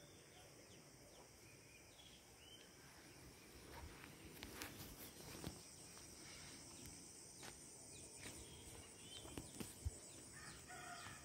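Near silence at night: a faint steady high-pitched insect drone, with soft scuffing footsteps on a dirt road from about four seconds in. A short chicken call sounds near the end.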